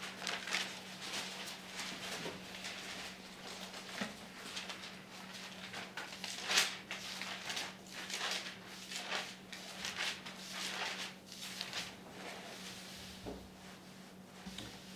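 Thin Bible pages being leafed through: soft, irregular paper rustling with a few sharper page flicks, over a steady low electrical hum.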